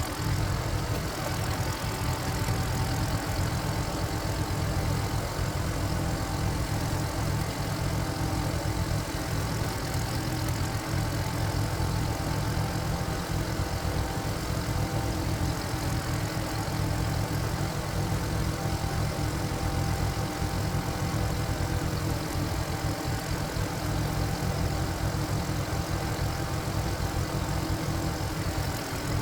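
Single-cylinder diesel engine of a walk-behind power tiller running steadily.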